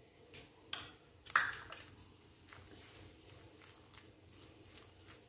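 A spoon mixing mayonnaise into a shredded chicken filling in a metal bowl: two sharp clinks of the spoon on the bowl in the first second and a half, then soft wet squishing and light scraping as the filling is stirred.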